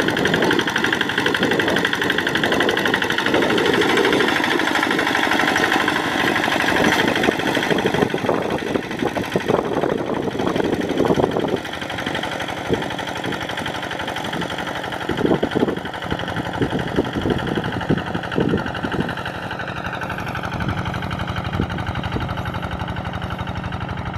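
Kubota RD85 single-cylinder diesel of a Quick G1000 Boxer hand tractor running steadily while ploughing a rice paddy, with scattered short clattering knocks. It gets somewhat quieter about halfway through.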